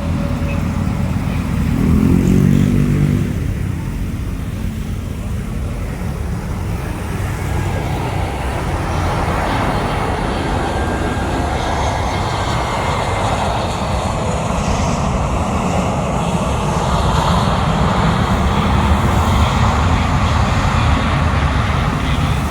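Jet airliner engine noise that swells from about eight seconds in and holds as a broad, loud roar, over a steady low rumble. A shorter, lower engine tone briefly rises and fades about two seconds in.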